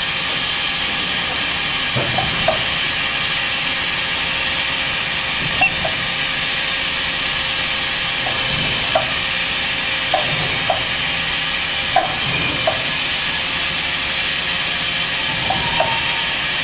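Okuma & Howa Millac 438V CNC vertical machining center running a program with its spindle at about 2,000 RPM: a quiet, smooth-running machine giving an even hiss. Short paired chirps recur every second or two.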